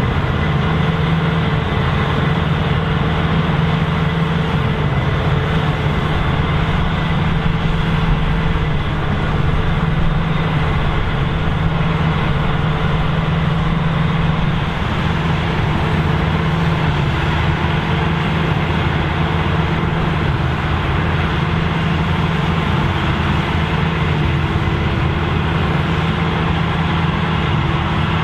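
Claas Lexion 770 combine harvester running steadily while harvesting, a constant deep engine hum under a dense machinery noise.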